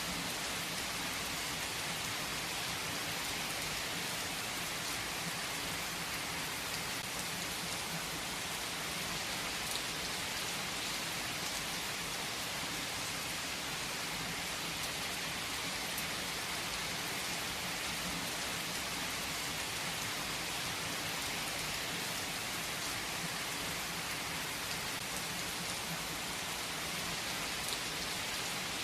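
Steady rain falling, a dense even patter with faint scattered drop ticks.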